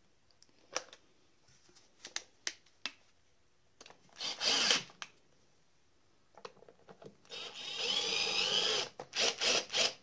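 Cordless drill-driver running screws into a chainsaw's plastic top cover: a short run of the motor, then a longer run of about a second and a half, then several quick trigger blips near the end. Light clicks and knocks come first as the cover is seated.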